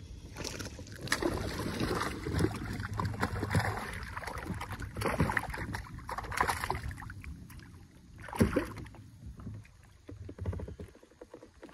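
Hooked bass thrashing and splashing at the surface beside a kayak as it is reeled in, with one loud splash about eight and a half seconds in as it comes out of the water.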